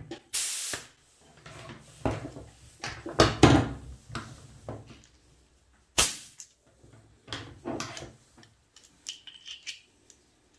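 Quick-connect fittings on a coiled air hose and an air blow gun being handled and coupled. A short hiss comes near the start, then rustling and knocking of the fittings, and a sharp click about six seconds in.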